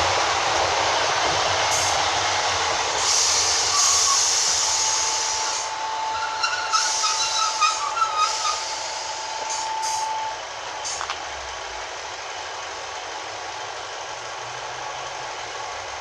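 Class 153 diesel railcar 153309 coming to a stop at the platform: a running rumble with bursts of air-brake hiss, brief squeals from brakes and wheels, and a steady beep held for several seconds in the middle. The noise eases after about ten seconds as the unit comes to rest.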